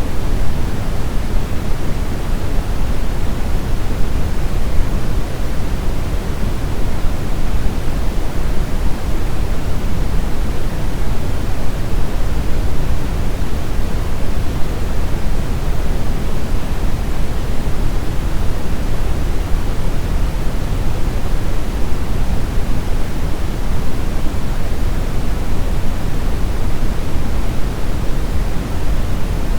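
Steady synthetic brown noise: an even, deep rushing hiss weighted toward the bass, with no changes or events.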